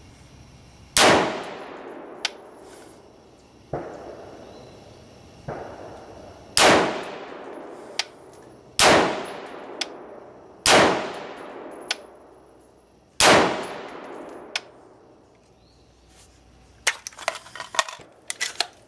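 Five shots from a Ruger Gunsite Scout bolt-action rifle in .308, fired about two seconds apart, each with a short decaying echo. Two fainter bangs fall between the first and second shots. A flurry of small clicks and rattles comes near the end.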